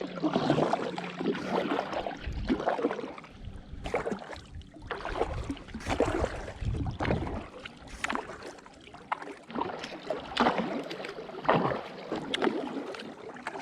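Kayak paddle strokes dipping and splashing in the water, roughly one a second, over the wash of water against the hull.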